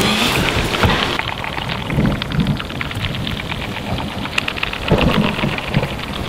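A dense, crackling, rain-like hiss with low rumbles swelling about two and five seconds in, like rain with distant thunder, laid under a horror-film scene.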